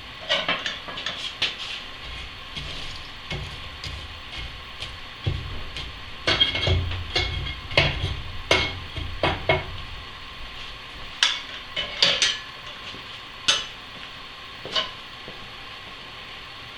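Irregular metal clanks, scrapes and wooden knocks from the firebox of a Napoleon model 150 wood furnace as a fire is built on a thin bed of coals, with split firewood handled in. They are busiest in the middle and thin out to single knocks near the end, over a steady hiss.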